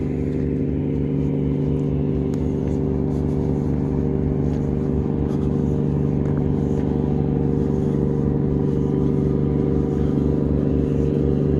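An engine running steadily at a constant idle, a steady hum over an even low throb.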